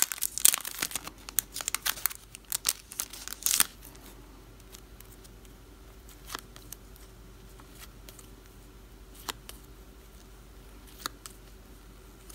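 A clear plastic packet crinkling and tearing as it is opened, a dense crackle for the first three and a half seconds or so. After that, a few faint, separate ticks as small photo prints are handled.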